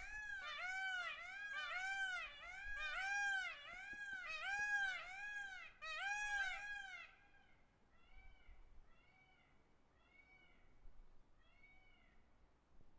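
Peafowl giving a fast series of short rising-and-falling calls, about two a second. About halfway through, the calls carry on much fainter and further apart.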